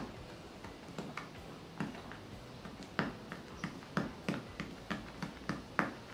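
A pointed pen-like tool pricking holes through paper into a soft cushion pad: a run of sharp, irregular taps, two to three a second, the loudest near the end.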